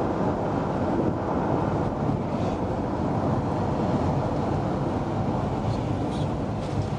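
Steady rumble of a vehicle on the move, road and engine noise with wind blowing on the microphone.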